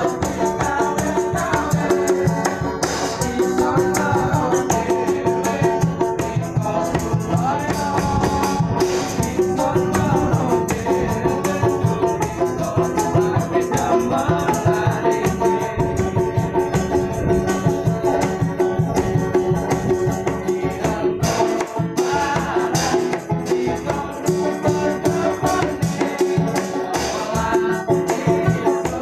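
Small acoustic street band playing: strummed acoustic guitars with a hand-held tambourine, a cymbal and a small hand drum keeping a busy, steady rhythm.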